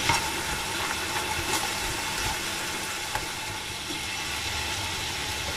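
Lamb rib chops sizzling in their fat in a frying pan over a high gas flame as they brown: a steady hiss with a few faint pops.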